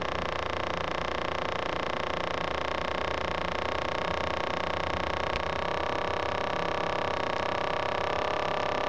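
Omron wrist blood-pressure monitor's small electric air pump running steadily as it inflates the cuff, its whine climbing slightly in pitch a little past halfway. It cuts off abruptly with a click near the end as the measurement finishes.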